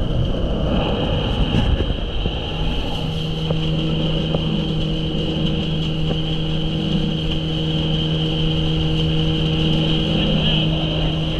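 Boat motor running at a steady speed, its pitch holding even from about three seconds in, with wind and water rush around it.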